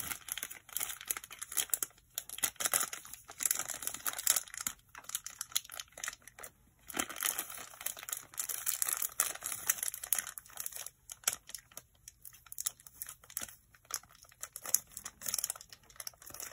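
Packaging crinkling and rustling on and off as it is handled, with irregular crackles and no steady rhythm.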